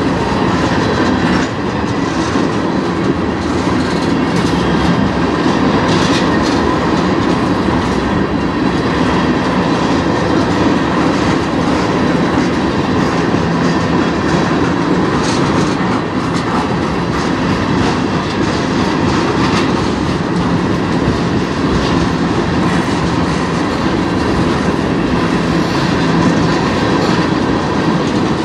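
Tank cars of a freight train rolling past at close range: loud, steady rumble and rattle of steel wheels on the rails, with clickety-clack over the rail joints.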